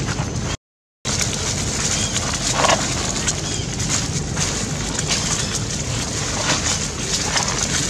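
Dry fallen leaves crackling and crunching underfoot as a macaque walks and forages over them, with steady wind rumble on the microphone. The sound cuts out completely for about half a second near the start.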